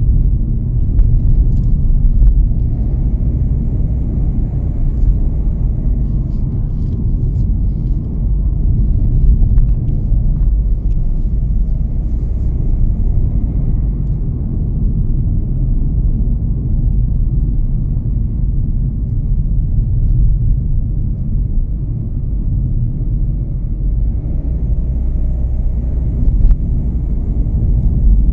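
Steady low rumble of a car being driven along the road: engine and tyre noise.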